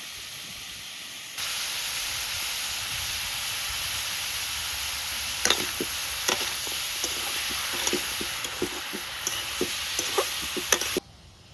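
Food frying in hot oil in a pan, a steady sizzle that steps up in level about a second in, with scattered pops and clicks from about the middle; it cuts off abruptly near the end.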